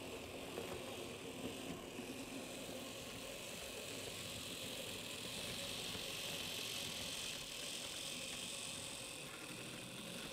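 V 60 model locomotive running on the layout, pulling a rake of wagons uphill: a steady electric motor whir with the wheels rattling over the rail joints, a little louder in the middle.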